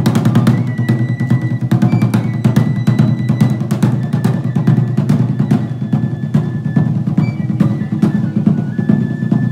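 Drum-led music: dense, rapid drum strikes with brief high held notes sounding over them now and then.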